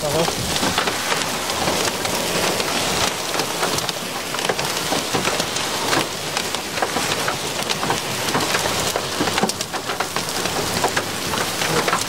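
Heavy rain in a thunderstorm's core drumming on a vehicle's roof and windshield, a dense steady hiss packed with individual drop strikes.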